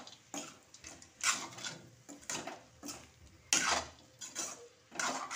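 Metal spatula scraping and knocking against a metal kadhai while stirring sabudana khichdi, in irregular strokes about once a second.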